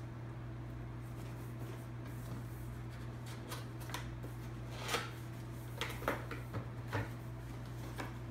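Cardboard camera box being handled and opened: scattered soft scrapes and taps of cardboard starting a few seconds in, the sharpest about five seconds in, over a steady low hum.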